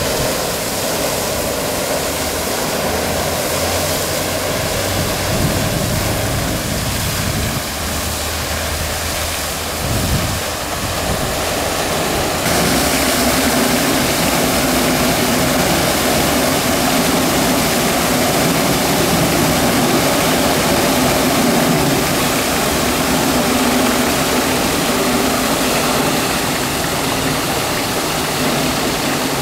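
Steady rushing and splashing of water from a park fountain, with a low hum underneath; the sound shifts and grows a little louder about twelve seconds in.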